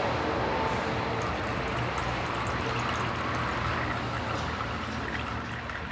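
Excess engine oil trickling steadily out of a Honda tiller engine's oil port into a bottle. The crankcase was overfilled with 10W-30 and the surplus is draining off to bring it down to level.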